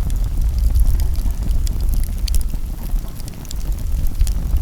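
Wood campfire crackling with scattered sharp pops, over a steady low rumble.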